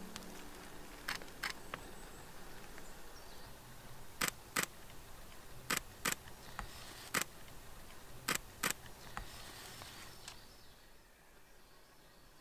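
Nikon Z6 mirrorless camera's shutter firing about five times. Each shot is a pair of sharp clicks about a third of a second apart.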